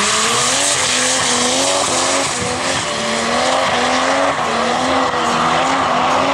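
BMW E30 sedan drifting: its engine revs climb and fall back again and again, over the hiss of spinning, smoking rear tyres.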